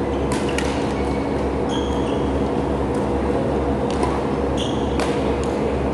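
Badminton play: a few sharp racket strikes on the shuttlecock and short sneaker squeaks on the court floor, over a loud steady low hum.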